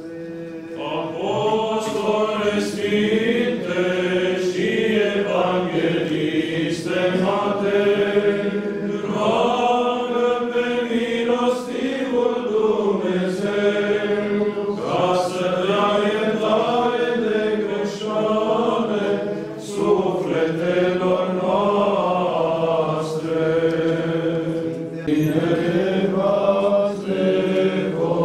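Orthodox liturgical chant sung by several voices, a slow, drawn-out melody over a steady low held note.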